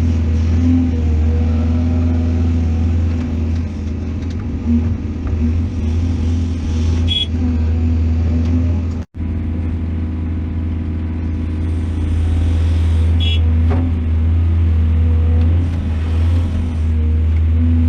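Excavator's diesel engine running steadily under work, a deep drone with a steady hum above it, with two brief high-pitched squeals about seven and thirteen seconds in and a momentary break about nine seconds in.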